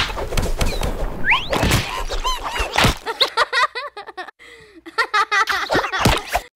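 Two cats swatting at each other on a sofa: a quick run of thumps and slaps from paws and bodies, with short high chirping calls in the second half.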